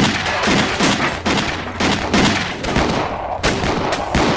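Gunfight: a series of gunshots, roughly two a second, each with a short ringing tail.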